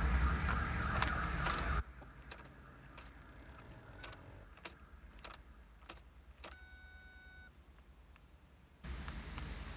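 Ford Mondeo ignition switch clicking over and over as the key is turned on and off in quick succession, the key-cycling used to put the car into remote-programming mode. About seven seconds in, a short single-tone electronic chime sounds, which on these Fords confirms that programming mode has been entered. A steady in-car noise cuts off suddenly about two seconds in and comes back near the end.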